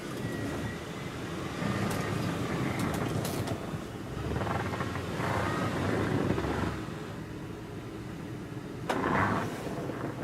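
The Mercury Grand Marquis's V8 engine running and revving in repeated surges as the car is driven out of deep snow.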